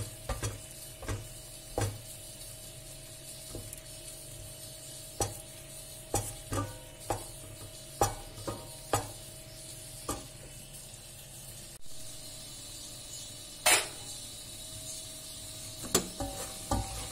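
Wooden spoon stirring cubed lamb in a stainless steel pot, with irregular knocks of the spoon against the pot, the loudest about two-thirds of the way through. Under it a faint steady sizzle as the meat cooks off the last of its own juices.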